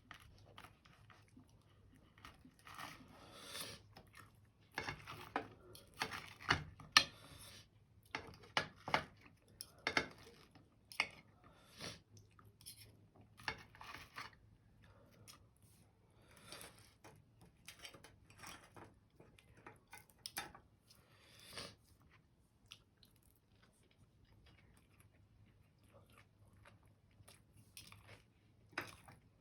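Irregular crunching of food in short bursts of varying loudness, thickest in the first half and loudest about seven seconds in.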